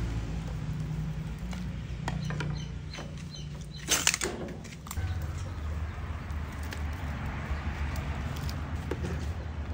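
Pot of soup boiling on an outdoor stove while a ladle stirs it, with light clicks and one short loud clatter of the ladle or pot about four seconds in, over a steady low hum.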